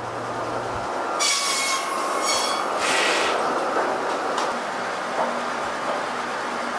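Rip saw of a steam-powered sawmill cutting a board to width: a high-pitched screech of about two seconds, starting about a second in, over the steady rumble and clatter of the mill machinery.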